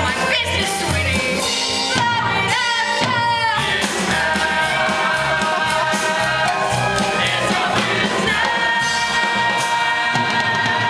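A show tune ending: a woman sings the closing phrases over band accompaniment, then holds a long final note on the band's sustained closing chord from about four seconds in.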